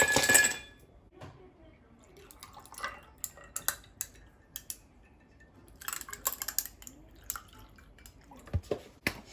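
Kitchen sounds: two short rushes of splashing water and scattered light clinks and knocks of dishes.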